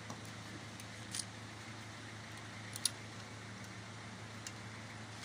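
A few light metal clicks, the sharpest about three seconds in, as an oiled connecting rod and its cap are handled and fitted onto the crankshaft journal of a Nissan MR18 engine, over a steady low hum.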